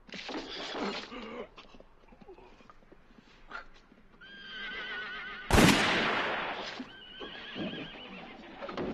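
Horse whinnying, a wavering call twice, about four seconds in and again about seven seconds in. A sudden loud bang about five and a half seconds in is the loudest sound.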